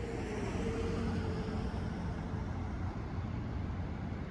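Steady low rumble and hiss of idling vehicle engines and street traffic on wet pavement, with a faint held tone through the first two seconds.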